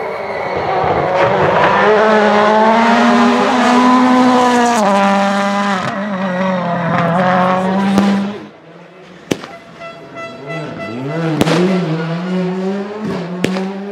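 Rally car engine at high revs passing close by, its pitch climbing and then falling about five seconds in as the driver shifts and lifts. The sound cuts off abruptly about eight seconds in, and a quieter car engine is then heard revving, with a few sharp cracks.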